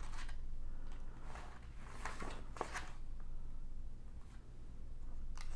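Paper pages of a ring-binder manual being turned and handled: a few soft rustles and flicks between about one and three seconds in, over a low steady hum.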